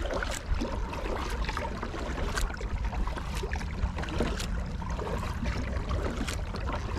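Kayak paddle strokes: water splashing and trickling off the paddle blades in irregular bursts, over a steady low rumble.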